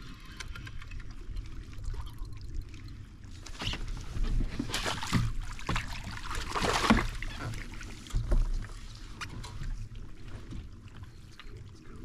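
Water splashing as a hooked bass thrashes at the surface beside the kayak and is scooped into a landing net. The splashes bunch up in the middle, loudest near the end of the struggle, followed by a dull thump.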